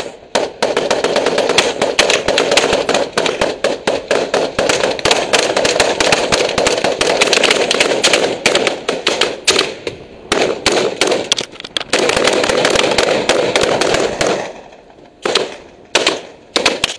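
Rifle gunfire: a long run of rapid shots, then, after a short pause, a few separate shots near the end.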